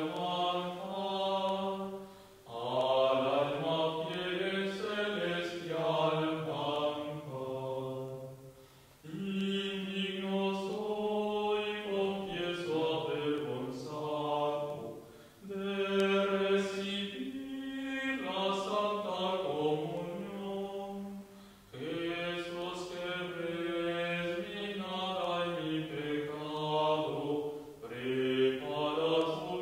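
A slow communion chant sung as one melodic line of long held notes. It comes in phrases of about six seconds with brief breaks between them.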